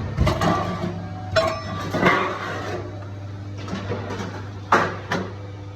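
Factory machinery humming steadily while sheet-metal parts clank and clatter several times, as in metalworking on a gas stove production line.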